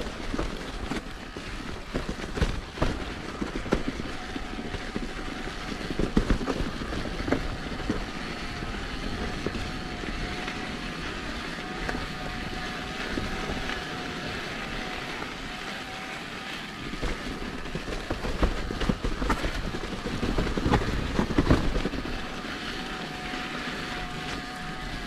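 Mountain bike rolling over a rough trail, with tyre noise and wind on the microphone and frequent knocks and rattles as the bike goes over bumps. A faint steady buzz comes in through the middle and again near the end.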